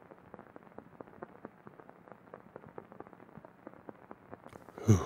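Faint, dull crackle and pops of an old film soundtrack: irregular clicks several times a second over a low hiss.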